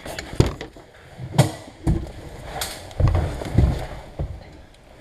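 Irregular knocks, clunks and thumps inside a fire engine's cab, about seven over a few seconds, some with a heavy low thud.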